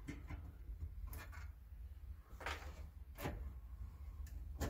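Plastic push-pin trim clips and the lower dash trim panel of a Ford Festiva clicking and rubbing as the clips are popped out by hand, about five short clicks spread over a few seconds.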